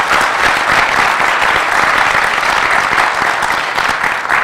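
Audience applauding, a steady dense clapping that eases off near the end.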